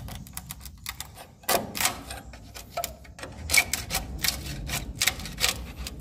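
Metal scraper blade working along a wooden swiftlet nesting plank, scraping off leftover nest material in a run of sharp, irregular clicks and scrapes.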